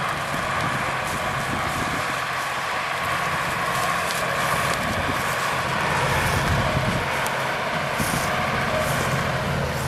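Combine harvester running while cutting a wheat crop: a steady, unbroken machine drone.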